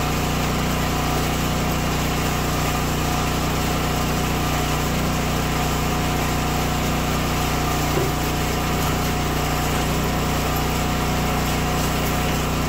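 Small engine of a firewood splitter running steadily at a constant speed, with one light knock about eight seconds in.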